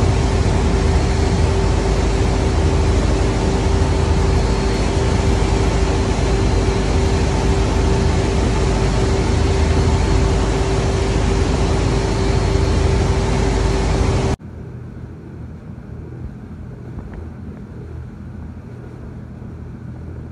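A ferry's engine drone with a steady hum over the churning of its wake. About 14 seconds in it cuts off suddenly to a quieter, lower rumble of water rushing along a ship's hull.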